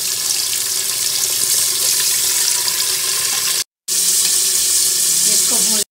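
Mutton pieces sizzling in very hot oil in a pressure cooker, a steady hiss like running water as the meat fries in its own released water. The sound drops out for a moment a little past halfway.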